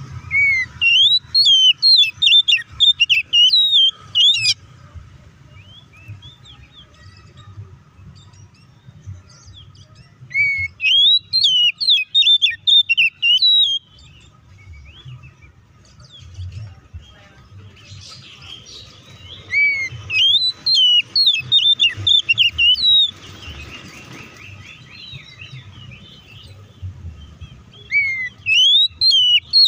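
Oriental magpie-robin singing loud bursts of rapid, varied whistled and chattering notes. There are four phrases of three to four seconds each, with pauses of several seconds between them.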